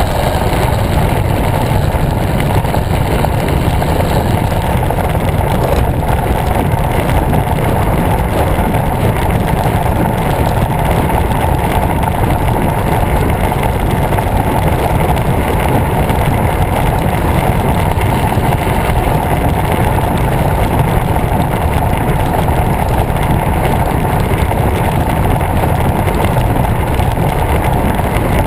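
Steady wind rush and low rumble on a handlebar-mounted camera's microphone, with tyre and road noise from a road bike rolling along asphalt.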